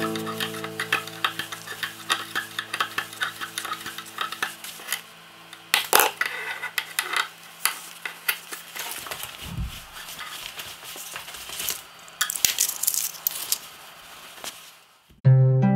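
Small clicks, taps and rustles of polyester thread being handled and wound around the wooden posts of a bowstring-making jig, with one louder click about six seconds in. Soft background music fades out early, and new music starts near the end.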